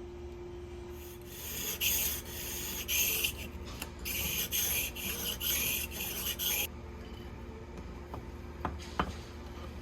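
Steel plane iron being honed on a sharpening stone, about ten back-and-forth rasping strokes that then stop, followed by a couple of light clicks near the end.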